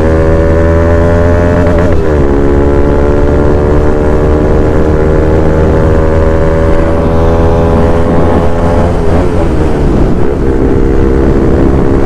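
Single-cylinder motorcycle engine heard from the rider's seat while accelerating on the road. Its pitch climbs slowly, drops with an upshift about two seconds in, climbs again, and drops with another shift around nine to ten seconds before holding steady.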